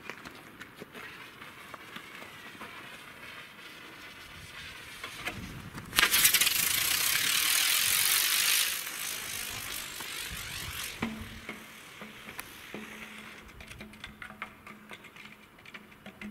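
Model rocket motor on a 3D-printed flying disc firing: a sudden loud hiss about six seconds in that lasts under three seconds, then drops to a fainter rush that dies away.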